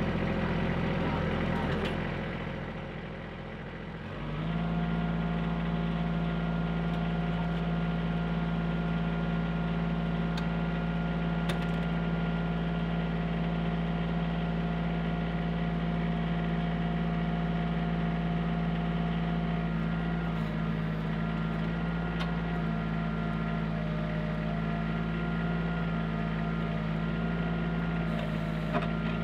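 Compact backhoe tractor's engine running. It drops back for a couple of seconds, then about four seconds in is throttled up to a steady, higher speed and holds there while the backhoe is worked.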